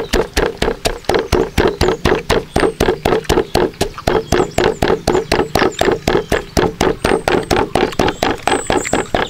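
Wooden pestle pounding chilies in a wooden mortar: quick, even knocks of wood on wood, about five a second, crushing the chilies and salt into a paste.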